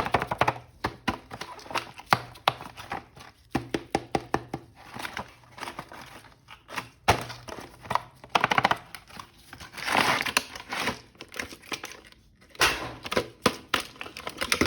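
Plastic toy packaging crinkling and tearing, with many sharp clicks and knocks as an action figure is unwrapped and handled. The crinkling is loudest and densest about ten seconds in.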